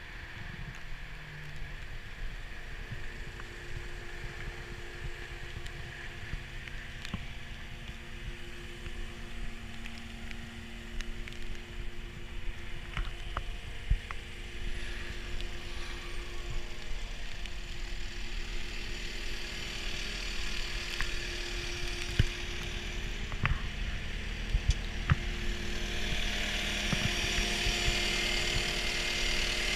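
CAT 236D skid steer loader's diesel engine idling steadily, getting louder near the end, with a few sharp clicks and knocks scattered through.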